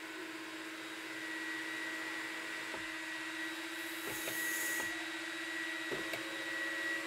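Chery Tiggo 8's electric panoramic sunroof motor running with a steady hum as the glass panel slides back. A few light clicks come in the second half.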